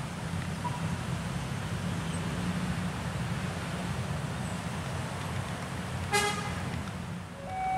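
Diesel locomotive running with a steady low rumble. A short horn toot comes about six seconds in, and a longer multi-tone horn blast starts right at the end.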